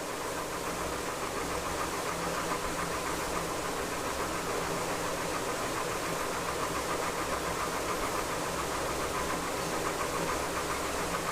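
A motor running steadily in the background, with a fast, even pulse.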